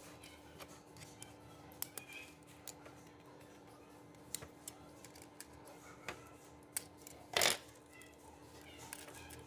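Small, scattered plastic and metal clicks and ticks from a wireless computer mouse being taken apart by hand, a screwdriver shaft prying at the scroll wheel, switches and spring wire. One louder, longer handling noise comes about seven seconds in.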